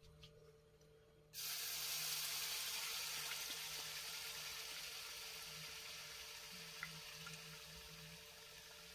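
Ground spice paste dropped into hot oil in a wok, sizzling all at once about a second and a half in, then slowly dying down as it fries.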